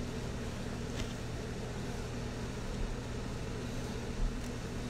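Steady low machine hum with hiss, room background from a running appliance such as an air conditioner or fan, with a soft low thump about four seconds in.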